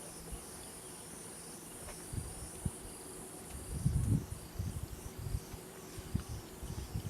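Steady high-pitched insect chorus, with irregular low thumps and rumbles starting about two seconds in and loudest about four seconds in.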